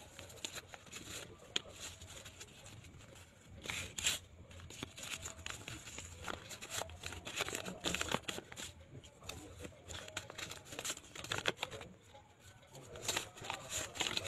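Paper envelopes being torn and unfolded by hand, with banknotes rustling and crinkling as they are pulled out and handled, in irregular rustles and tears.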